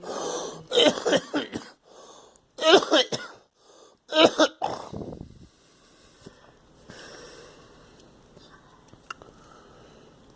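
A girl coughing in three bouts over the first five seconds, each a quick cluster of coughs, then it dies down.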